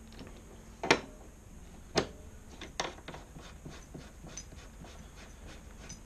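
MIG torch connector being pushed onto the wire feeder's front socket and handled: two sharp clicks about a second apart, a fainter one just after, then light ticks and rubbing.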